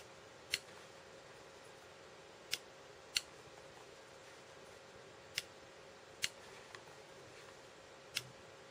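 About seven isolated, sharp clicks of a computer mouse and keyboard keys, irregularly spaced, over faint room tone.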